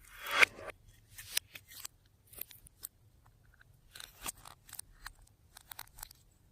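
Slime being squished and worked by hand, giving a string of irregular sticky clicks and crackles, the loudest about half a second in.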